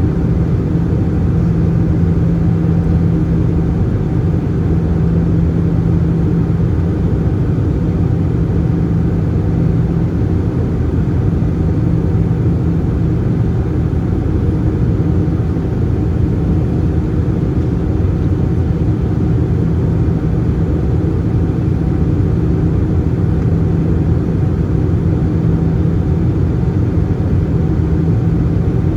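Steady cabin drone inside an Airbus A320-214 in flight: the CFM56 engines and rushing air, with an even low hum that does not change.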